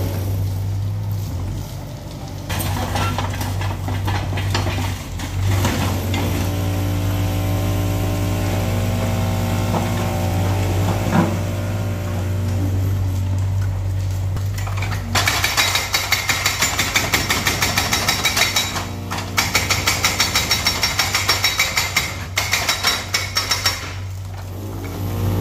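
Yanmar mini excavator's engine running under hydraulic load, then, a little past halfway, its hydraulic breaker hammering rapidly at about four to five blows a second, with a short pause partway through.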